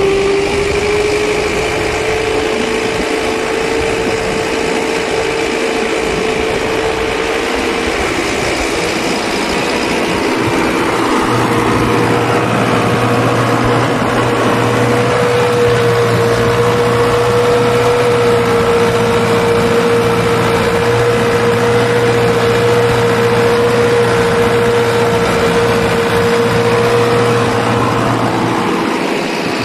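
Fiat 640 tractor's four-cylinder diesel engine running steadily under load while pulling a Raja plough through the soil, heard up close from the tractor, with a strong steady whine that climbs a little in pitch in the first seconds.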